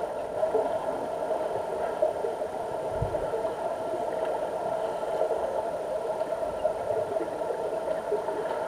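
Steady mechanical hum heard underwater in a deep diving pool, from the pool's circulation pumps, with no distinct events.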